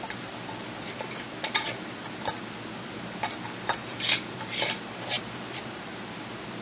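Metal screw band being twisted onto the threads of a glass mason jar: light scrapes and clicks, then three louder scraping turns about half a second apart.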